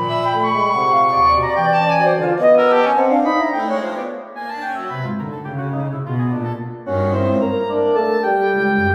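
Atonal chamber music for a ten-piece ensemble of flute, oboe, clarinet, bass clarinet, bassoon, horn, trumpet, viola, cello and bass, rendered with Garritan Personal Orchestra 5 sampled virtual instruments rather than live players. The dense texture thins and softens a little before halfway, then comes back fuller and louder about seven seconds in.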